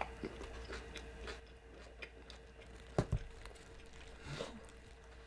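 A person chewing a mouthful of empanada close to the microphone, with soft wet mouth clicks and one sharper click about three seconds in.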